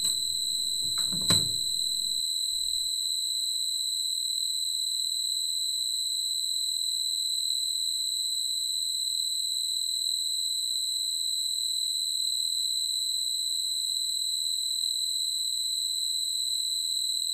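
Steady high-pitched electronic tone, held unbroken and even. Two brief knocks and a low rumble fall in the first couple of seconds.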